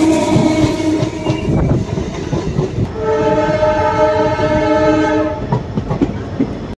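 Train horn blowing over the rumble and clatter of a moving train: one blast fading out about half a second in, then a longer blast from about three seconds in to just past five seconds.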